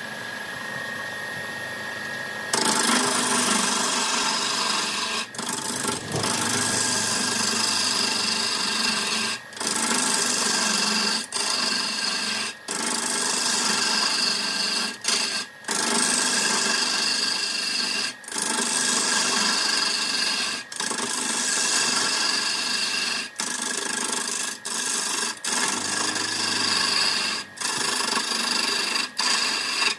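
Wood lathe motor running with a steady hum. From about two and a half seconds in, a loud rasping scrape of a tool working the spinning wood blank, broken by many brief gaps.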